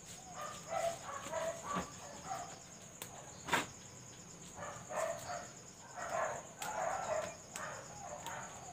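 Short domestic-animal calls repeating every second or so, with a few sharp snaps as spinach leaves are stripped from their stems, over a steady high insect drone.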